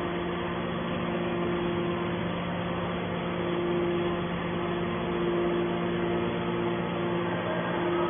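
Hydraulic power unit of a scrap metal baler running steadily, a constant machine hum with a steady low whine.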